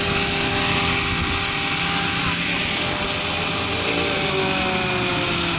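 500-size radio-controlled model helicopter hovering low, its motor and rotor giving a steady high-pitched whine with a constant hum beneath it.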